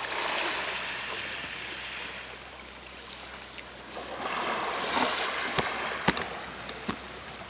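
Sea water sloshing and splashing against a rock at the waterline, heard through a camera that dips in and out of the water. It grows louder about four seconds in, and three sharp clicks come near the end.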